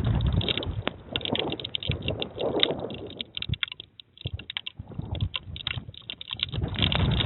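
Typhoon rain and wind hitting an outdoor security camera: dense, irregular clicking of raindrops on the housing with gusts of wind noise, easing about halfway through and building again near the end.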